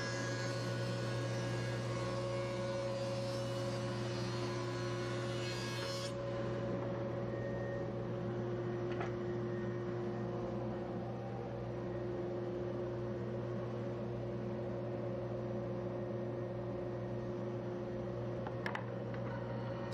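Thickness planer and dust collector running with a steady hum. For about the first six seconds a pine board feeds through the planer, adding the higher noise of the cutterhead taking a pass, which stops sharply about six seconds in.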